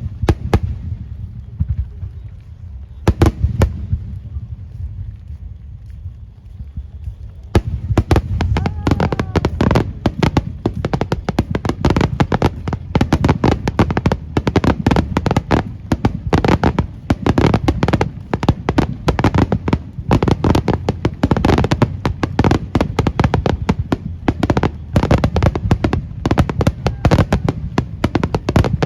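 Fireworks shells bursting: a few separate bangs in the first few seconds, then from about seven and a half seconds a dense barrage of rapid bangs, many a second.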